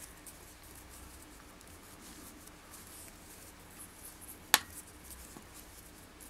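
Faint rustling and handling of macramé threads being braided by hand, with one sharp click about four and a half seconds in.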